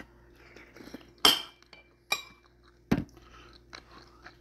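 Metal spoon clinking against ceramic bowls, three sharp clinks about a second apart, the last a duller, heavier knock.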